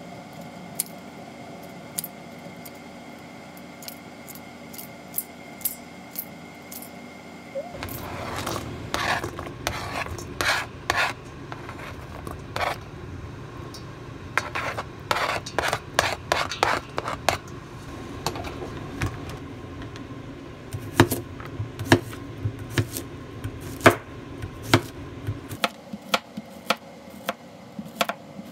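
Kitchen food preparation in three parts. First, scissors snipping chili peppers over a stainless steel bowl, with sparse sharp clicks. Then a denser clatter and clicking as chopped onion is tipped from a plastic cutting board into the steel bowl. Near the end, a knife slicing a Korean zucchini on a cutting board, with a sharp tap at each cut.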